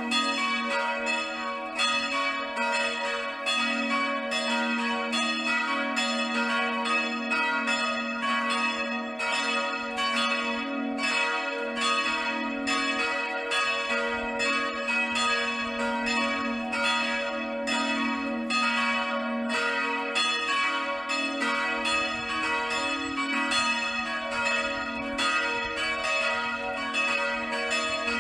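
Church bells ringing together in a continuous peal: a steady stream of overlapping strikes, a few each second, over a lingering hum of ringing tones.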